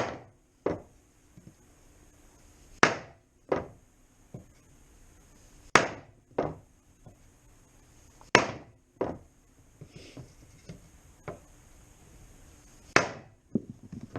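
Hammer blows on an AXP plastic (HDPE) motorcycle skid plate resting on a block of wood. The blows knock the cracked, bent section back flush. There are five heavy blows about every three seconds, each followed by a lighter knock.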